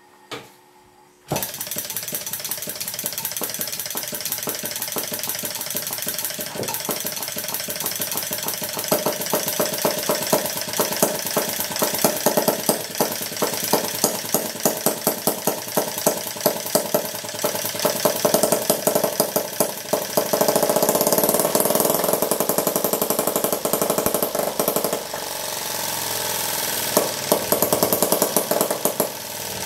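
Maier vertical two-stroke butane model engine (about 1.5 cc, piezo spark ignition) catching about a second in after its flywheel is flicked, then running with a fast, rattling clatter broken by frequent louder, irregular pops. Its speed and note shift during the run.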